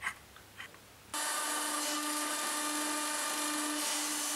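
Homemade 40-ton hydraulic forging press running, its electric hydraulic pump unit switching on about a second in with a steady whine and hiss as it drives the ram down toward its limit stop.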